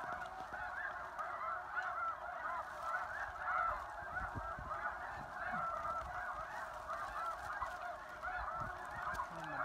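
A large mass of snow geese calling at once: a steady, dense chorus of overlapping high-pitched honks.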